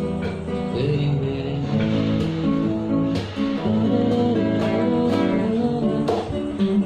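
A man singing while strumming an acoustic guitar, with sustained chords and the occasional sharp strum stroke.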